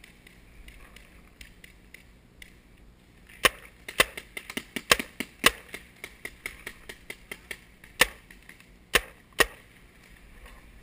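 Paintball markers firing: sharp pops in quick, irregular runs, starting about three and a half seconds in and dying out about nine and a half seconds in, several of them loud.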